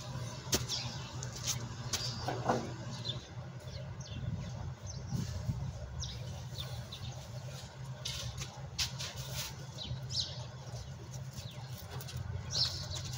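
Birds chirping in short, scattered calls over a steady low hum, with a few sharp clicks.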